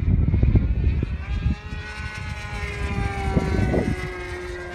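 Super Tigre G90 two-stroke glow engine with a tuned pipe, driving the propeller of a radio-controlled F3A aerobatic model plane in flight. Its high engine note comes in about a second in, rising a little in pitch and then sliding slowly lower. Wind buffets the microphone at the start.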